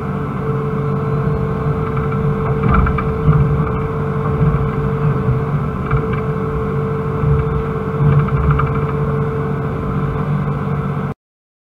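Excavator's diesel engine and hydraulics heard from inside the cab: the engine runs steadily under a steady whine, swelling briefly a few times as the boom and bucket are worked. The sound cuts off suddenly near the end.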